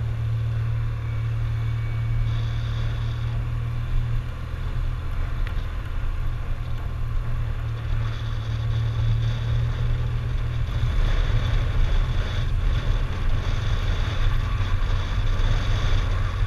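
Motorcycle engine running steadily as the bike rides at town speed, heard from a bike-mounted camera with wind rumble on the microphone.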